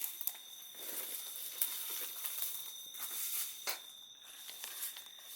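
Footsteps and rustling as people move about, with a few sharp clicks, over a steady faint high-pitched whine.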